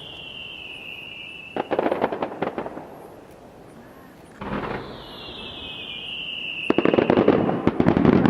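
Fireworks: a whistling shell's falling whistle that breaks into a rapid crackle of pops. A second shell goes up about halfway through, whistles down in pitch and gives way to a longer, louder crackle near the end.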